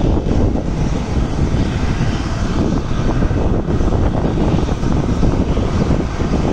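Boeing 737-700 jet engines (CFM56-7B turbofans) running loud and steady.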